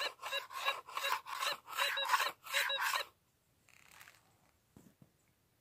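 Dirt rattling in a plastic scoop as it is swept back and forth over a Minelab Gold Monster metal detector's coil, about three passes a second. Each pass sets off a warbling signal tone from the detector that rises and falls, meaning the gold target is in the scoop. The passes stop about three seconds in.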